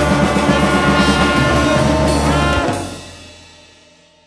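Children's music-school ensemble of winds, strings, brass and drums playing the loud closing bars of a song with steady drum strokes, then cutting off sharply about two and a half seconds in and ringing away to silence.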